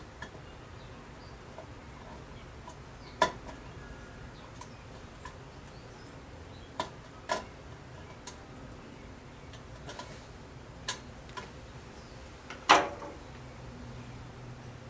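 Small metal parts of a cowl lamp's bulb holder clicking and clinking as they are handled and seated by hand: scattered sharp clicks, the loudest about three seconds in and just before the end.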